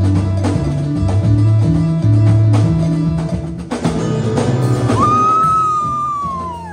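Live band music: electric bass guitar playing a moving bass line over drum kit, congas and keyboard. About five seconds in, a single high held note comes in and slides slowly downward as the band gets quieter.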